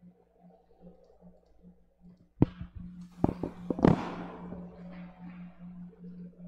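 A few sharp clicks in a cluster from about two and a half to four seconds in, the last trailing off in a brief rustle, over a steady low hum.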